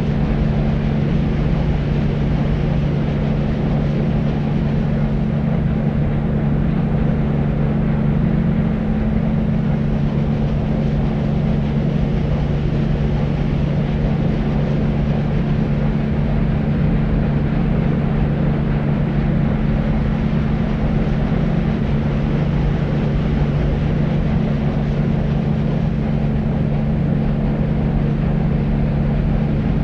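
Steady, deep white noise with a low hum in it, unchanging throughout: a sleep-noise track for soothing babies.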